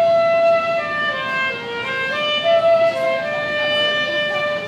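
Live solo melody on a wind instrument: a single line of long, held notes that step and slide up and down in pitch.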